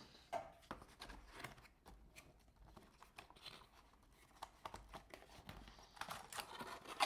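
Light handling noises: scattered small clicks and rustles as small keyboard parts and their box are moved about, busier near the end.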